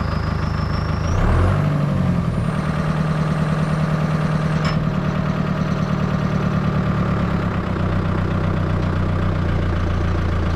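Tractor engine running steadily, revving up about a second in and then holding speed, with a thin high whine over it that rises, holds, and stops with a click about halfway through.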